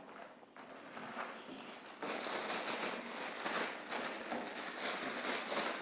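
Clear plastic wrapping crinkling as a pistol is pulled out of it by hand, faint at first and clearly louder from about two seconds in.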